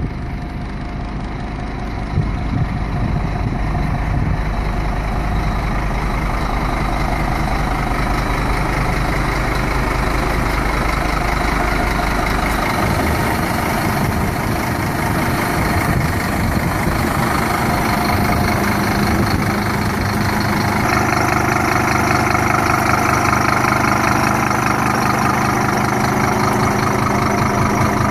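Scania DC9 five-cylinder diesel engine of a Scania P310 truck idling steadily. It gets louder about two seconds in and again about two-thirds of the way through.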